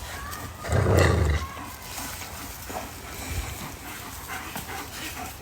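A dog growls once, loud and rough for about half a second, about a second in, during rough play with a person; quieter scuffling follows.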